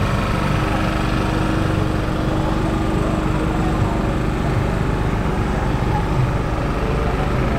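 A small engine running steadily, with a low rumble and a faint even hum.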